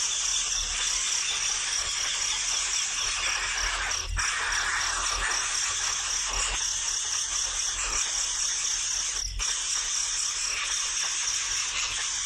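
Baby birds calling noisily: a dense, unbroken chorus of high chirping.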